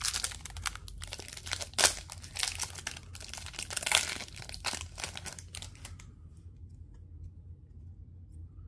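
Foil trading card pack wrapper crinkling and tearing as it is pulled open by hand: a run of sharp crackles for about six seconds that then stops.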